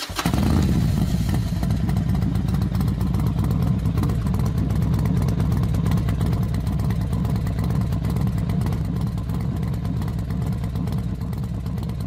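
Racing motorcycle engines running at high revs, a steady dense drone that starts abruptly and eases off slightly toward the end.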